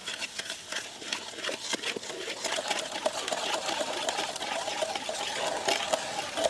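Wooden spatula stirring sugar into a thick paste of ground tender coconut in a brass pan, the wood scraping and clicking rapidly against the metal, with a faint ring from the pan.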